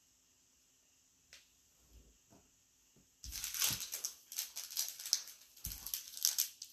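A few soft taps, then from about three seconds in a foil trading-card pack wrapper crinkling steadily as it is handled and opened.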